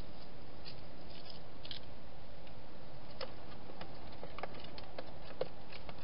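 Wild hedgehog moving about a garden feeding station: light, irregular clicks and ticks, more frequent from about three seconds in, over a steady hiss.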